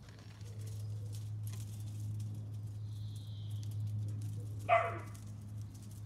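A six-week-old Rough Collie puppy gives a single short yip that falls in pitch, about three-quarters of the way through, over a steady low hum.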